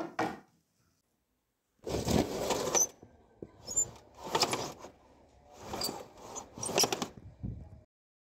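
A short knock as a tray is set down, then a run of about five swishing, sliding noises with faint high squeaks, from net curtains and an aluminium window frame being handled and pulled open.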